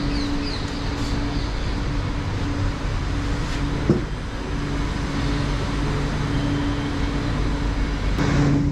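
Steady hum inside a Chennai Metro train carriage standing at a station, with a single short knock about four seconds in. The hum grows a little louder near the end.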